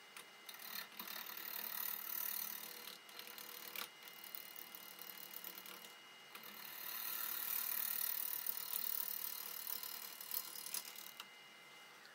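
A half-inch bowl gouge cutting the bottom of a spinning curly maple bowl blank on a wood lathe: a hissing shear of the wood in two passes, from about half a second to nearly four seconds in and again from about six and a half to eleven seconds. Underneath runs the lathe's steady motor whine.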